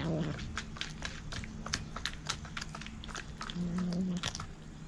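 A cat chewing raw fish, a loach, with many sharp wet crunches and clicks. A short low growl comes about three and a half seconds in.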